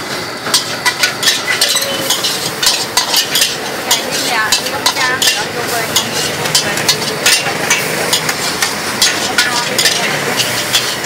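Stir-frying in a steel wok: a metal spatula scraping and clanking against the pan in quick, irregular strokes over a steady sizzle.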